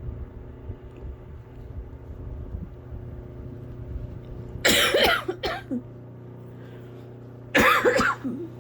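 A person sick with a cold, kinda sorta congested, coughing in two bouts of a few harsh coughs each, about three seconds apart.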